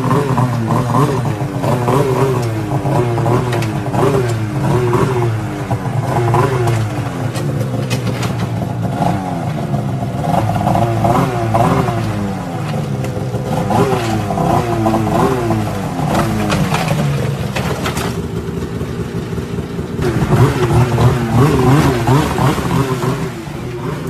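Snowmobile engine revving up and down over and over as the sled is ridden down a steep run of rock steps, loudest near the end.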